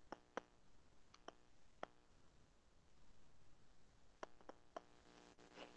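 Near silence with a handful of faint, single computer mouse clicks scattered through it, a few near the start and a few more about four seconds in.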